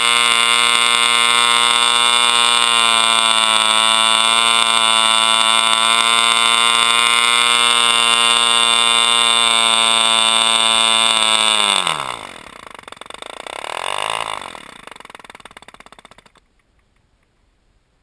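Model airplane glow engine, a .60-size two-stroke ("Super 60") running on nitro fuel and turning a propeller, runs at steady high revs with a loud, high whine. About twelve seconds in it cuts out and its pitch falls away as the propeller winds down, with a brief swell in sound before it coasts to a stop a few seconds later.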